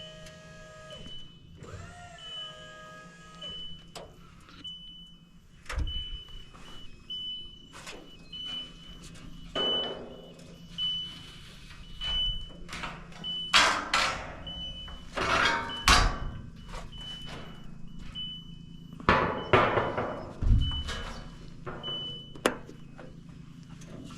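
Steel roof panels being handled, with metal scraping and banging in several long swells and a few sharp knocks. A short high beep repeats steadily throughout.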